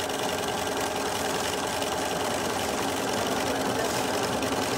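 Bernina B 335 electric sewing machine running steadily at stitching speed, sewing a long topstitching seam along the edge of a fabric headband.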